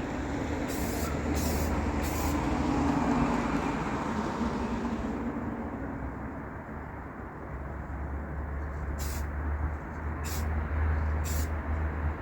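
Spray paint hissing in short bursts, three near the start and three near the end, as a model car's undercarriage is painted red, over a steady low outdoor rumble.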